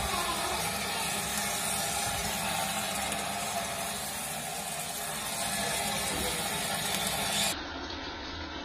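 Kitchen sink tap running steadily, water splashing onto a basin of small fish being rinsed by hand. The sound turns a little duller and quieter near the end.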